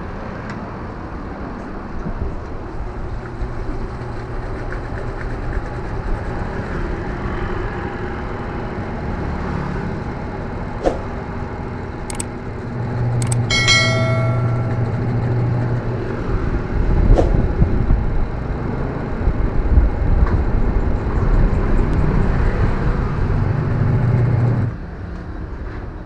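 Top-loading washing machine's spin-dry motor running with a steady hum that grows louder about halfway through and cuts off about a second before the end. A short bright chime sounds near the middle.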